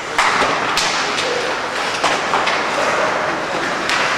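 Ice hockey play on a rink: a steady scraping rush of skates on the ice, broken by a few sharp knocks of sticks, puck and boards.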